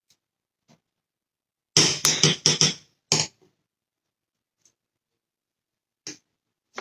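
A spoon knocking against cookware while grits are served: a quick run of about five sharp taps about two seconds in, one more just after, then single taps near the end.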